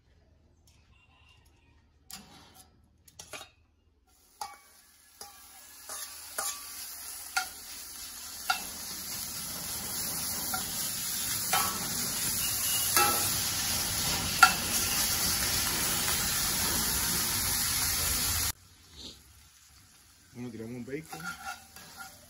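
Bacon sizzling in a cast-iron skillet over charcoal, the hiss growing louder as the pan heats and the fat renders. Metal tongs click and scrape against the pan as the pieces are stirred. The sizzle cuts off suddenly about three-quarters of the way in, and quieter tong clicks follow.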